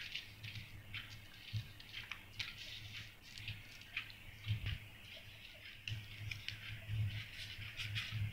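Paper crinkling and rustling as a sheet of craft paper is folded and smoothed flat by hand, with many small irregular crackles and light taps of the fingers on the table.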